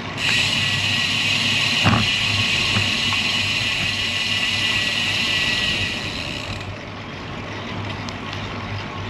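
Steady noise of a road bike being ridden, with a high hiss that cuts off suddenly about two-thirds of the way through, leaving a lower rumble, and a single click about two seconds in.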